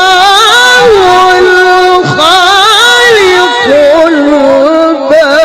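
A male Quran reciter's voice in melodic tilawah, singing long, high held notes with quick wavering ornaments. The line breaks briefly about two seconds in, then carries on.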